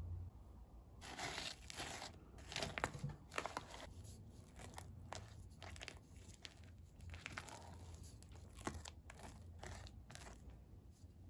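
Silicone spatula folding chopped Oreo cookies into thick cheesecake filling in a glass bowl: a faint run of short, irregular scraping strokes.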